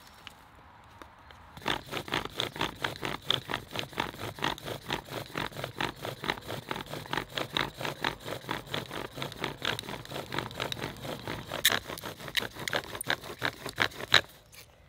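Bow drill in use: the wooden spindle spins back and forth in a split hearth board under a sycamore bearing block, squeaking with each bow stroke at several strokes a second. It starts about a second and a half in and stops shortly before the end. The owner judges the wood not right for a bow drill.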